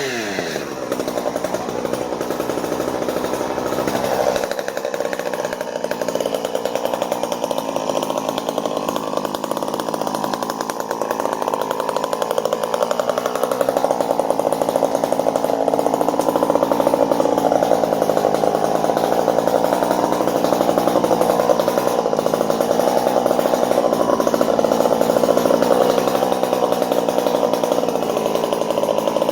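Gas chainsaw running steadily under load, cutting through red elm wood.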